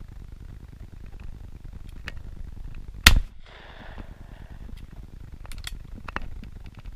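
A single shotgun shot, loud and sharp, about three seconds in, followed by a few faint clicks near the end. A low wind rumble sits under it throughout.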